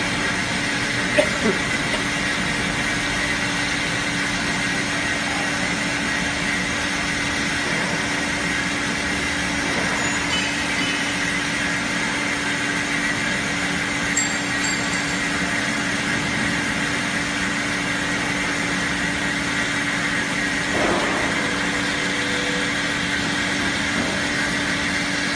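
Horizontal metal-cutting band saw running steadily, cutting through a bundle of steel bars for CO2 fire extinguisher cylinders: a constant machine hum with a hiss, and a few faint clicks about a second in and again around fourteen seconds.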